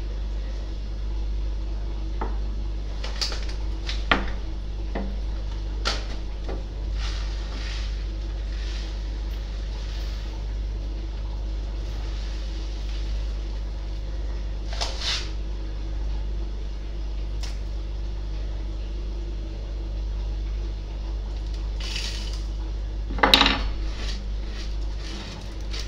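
Tabletop handling sounds: scattered clinks and knocks of teaspoons and a small plastic jar on wood, and short rustles of a paper salt bag, over a steady low hum. The loudest, a clatter with a rustle, comes near the end.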